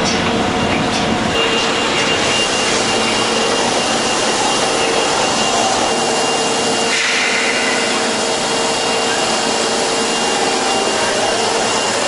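Osaka Metro Tanimachi Line subway train standing at an underground platform, its machinery giving a loud, steady whir with a steady hum. There is a brief hiss about seven seconds in. Near the end a rising motor whine sets in as the train starts to pull away.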